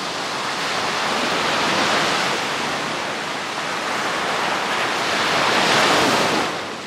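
Sea surf: small waves breaking and washing up on a beach, a steady rush that swells twice, louder the second time near the end.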